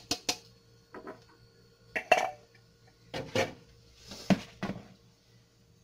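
Kitchenware knocking and clinking: a food processor bowl and a mixing bowl tapped and clattered as ground chocolate graham cracker crumbs are emptied from one into the other. There are about nine sharp knocks in irregular pairs and singles.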